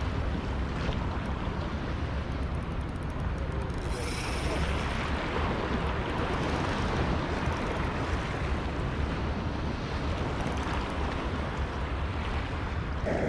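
Sea water washing and lapping at the shore rocks, with wind buffeting the microphone; a brief hiss about four seconds in.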